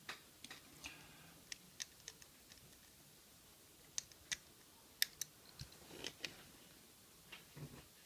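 Faint, irregular clicks and ticks from the number wheels of an Abus three-dial combination padlock, turned by hand to find the combination by feel.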